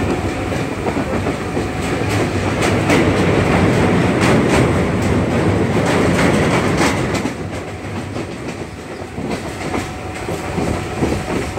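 Passenger train running along the track, heard from inside a coach at the window: a steady rumble and hiss of wheels on rail, with a few sharp clacks. It eases off somewhat about seven seconds in.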